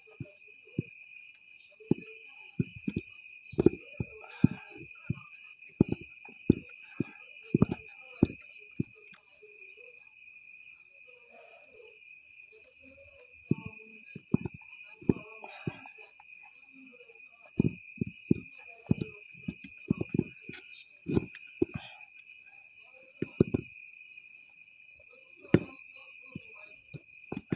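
A wooden paddle knocking against a metal pot as stiff ugali is stirred and pressed, in irregular clusters of short thuds, over a steady chorus of crickets.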